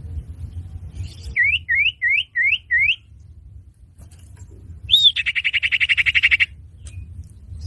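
Common iora (cipoh) call used as a bird-catching lure: five quick upslurred whistles, then a single note followed by a fast, even chattering trill. A low steady hum lies under it.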